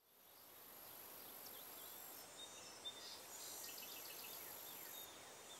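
Faint outdoor countryside ambience fading in from silence: scattered short bird chirps over a steady high-pitched hiss.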